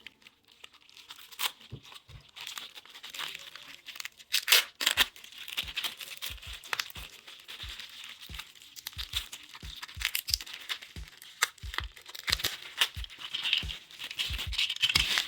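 Packaging being crinkled and torn open by hand to unwrap a small toy train wagon, with many irregular sharp crackles and snaps.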